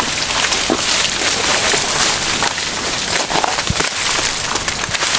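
Rain falling steadily while broken, ice-coated tree branches and leaves rustle and crackle underfoot as someone clambers through them, with a dull thump a little past the middle.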